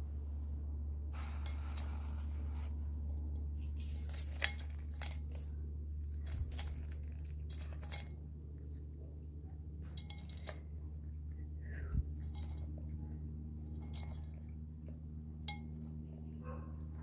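Chipmunk rummaging in a ceramic cup of in-shell peanuts: irregular sharp clicks and clinks as shells and claws knock against the glazed cup, with crunching of peanuts, over a steady low hum.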